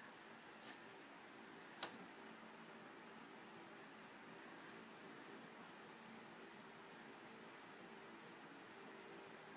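Faint scratching of a light umber Prismacolor colored pencil in quick short strokes on UART sanded paper, starting about two and a half seconds in, after a sharp click.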